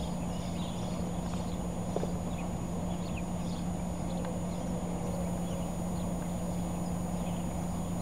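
Birds chirping outdoors: many short, high calls scattered irregularly, over a steady low hum and constant background rush.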